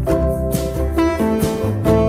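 Instrumental background music, with sustained notes changing about every half second over a bass line.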